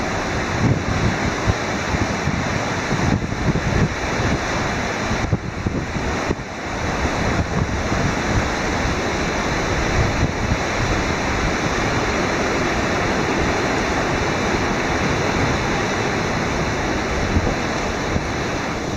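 Ocean surf breaking and washing ashore, with wind rumbling on the microphone in gusts.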